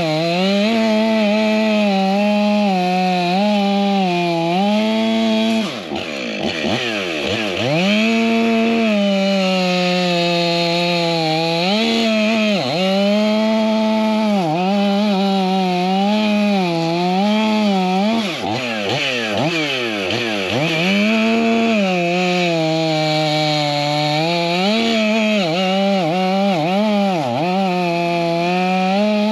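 Stihl MS500i fuel-injected two-stroke chainsaw cutting a log at full revs, its pitch sagging a little under load. Several times the throttle is let off, so the engine drops sharply toward idle and then revs straight back up.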